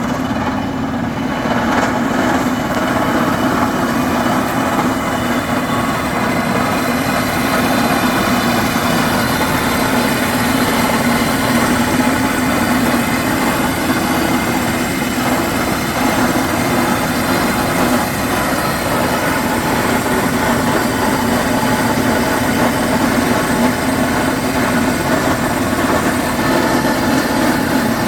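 Rock drilling machinery running steadily, a loud, constant engine drone that does not change.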